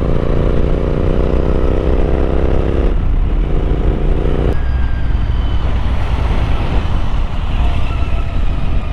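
Royal Enfield Interceptor 650 parallel-twin motorcycle engine under way, its revs climbing slowly, easing off about three seconds in and again at about four and a half seconds. After that a low steady rumble remains.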